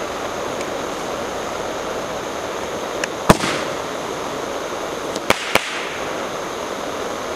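Crazy Spades Roman candle firing: a steady hiss as it burns, broken by sharp pops as it shoots, one about three seconds in and two in quick succession about five seconds in.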